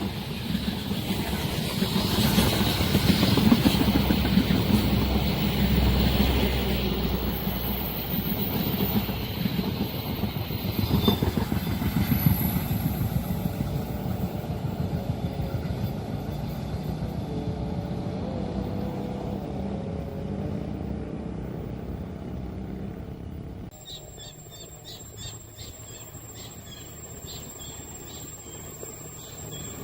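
Road traffic, motorcycles and cars, running past, loudest in the first few seconds and fading away. About three quarters of the way through, the sound changes abruptly to a quieter background.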